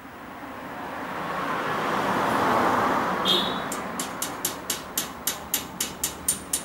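A passing vehicle's noise swells and fades over the first three seconds or so. Then comes a regular run of sharp metallic clicks, about four a second, as a wrench works a bolt on the cast-iron treadle stand.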